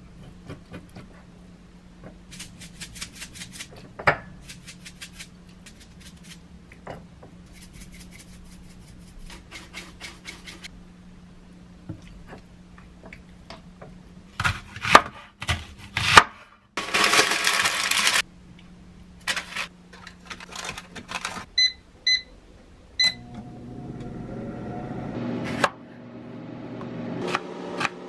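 Kitchen prep: a knife scoring a raw pork belly slab on a ceramic plate, with light clicks and bursts of rapid ticking as the meat is seasoned, then a few loud knocks and a short rushing burst about halfway through. An air fryer then gives three short beeps as it is set and starts running with a steady hum and fan noise that grows louder.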